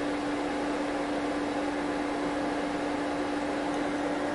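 Steady hum of bench test equipment's cooling fan, with one constant low tone over an even whirring hiss.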